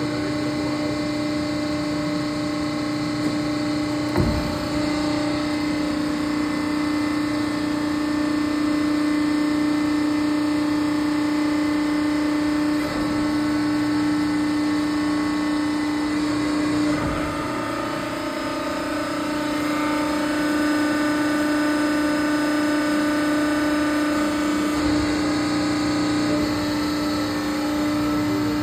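Hydraulic system of a DAVI 4-roll CNC hydraulic plate roll running with a steady hum, its tone shifting slightly a couple of times as the machine is operated, with a few soft knocks.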